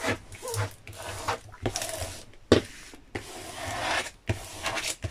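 Hands rubbing and sliding over the clear plastic cover film of a diamond painting canvas, pushing trapped air out from under it. An irregular rustling rub, with one sharp click about halfway through.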